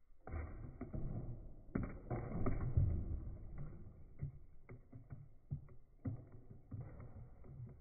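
A plate knocked out from under cardboard paper-towel tubes in the egg-drop inertia demonstration: a run of irregular knocks and clatter with a rumble as the tubes fall and roll across the table and the eggs drop into cups of water. It is loudest about two to three seconds in, followed by smaller scattered knocks.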